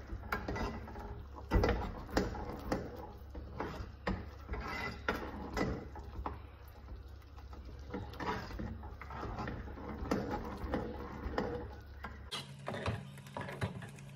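Metal spoon scraping and knocking against the side and bottom of a pot while stirring thick gravy, in irregular clicks and scrapes, the loudest knock about a second and a half in, over a steady low hum.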